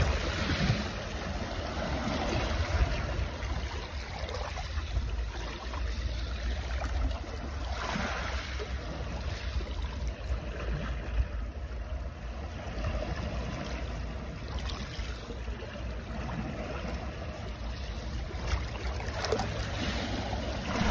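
Wind rushing and buffeting over a helmet-mounted microphone on a moving motorcycle: a steady, uneven rumble and hiss with no clear engine note.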